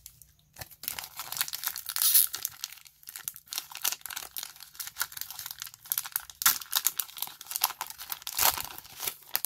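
Foil wrapper of a Pokémon booster pack crinkling and tearing as it is ripped open by hand, a dense run of crackles starting about half a second in.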